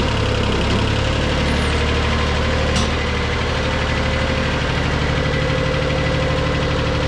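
International 275 compact tractor's engine running steadily at low speed as the tractor moves on a flatbed trailer. A brief click is heard about three seconds in.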